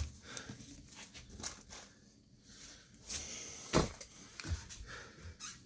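Light handling noises: scattered faint clicks and rustles, with one sharper click about four seconds in.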